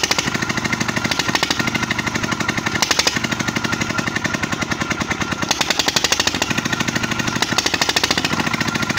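A 25-horsepower Petter diesel engine, just rebuilt with a new head, running steadily with a rapid, even knocking beat. It is pumping water.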